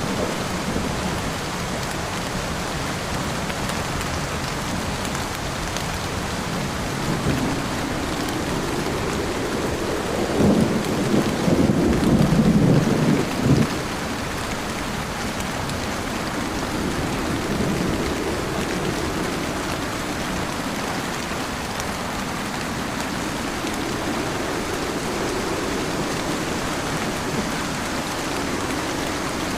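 Heavy rain beating steadily on a car while driving. About ten seconds in, a louder low rumble swells for some four seconds and then dies away.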